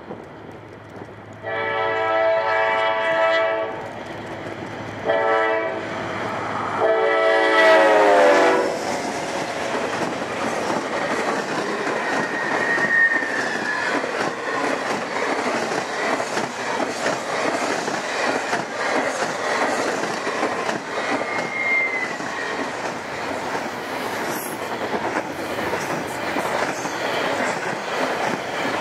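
Norfolk Southern freight locomotive's multi-chime horn sounds three blasts for a road grade crossing, the last one dropping in pitch as the locomotive passes. Then the long double-stack intermodal train rolls by in a steady rumble and clatter of wheels on rail, with two brief high wheel squeals.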